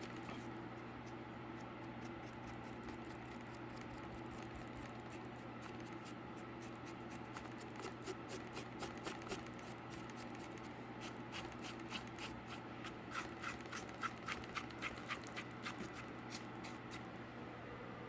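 A paintbrush dry-brushing a cardboard surface, scratching in quick strokes: two runs of about three to four strokes a second, over a steady low hum.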